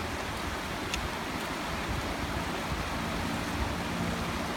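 Firehole River running fast over rocks and around the bridge piers: a steady rushing of water.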